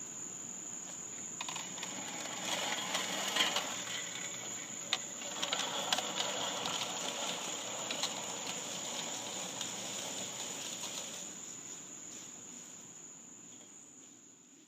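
Fiskars 6201 Staysharp Max push reel mower cutting grass: its spinning reel blades whirr and tick as it is pushed, starting a second or so in, then fading out near the end. A steady high insect trill goes on underneath.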